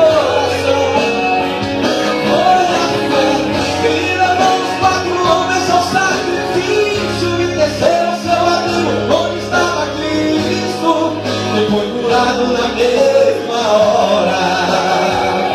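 A man singing a Christian song into a handheld microphone over instrumental backing music.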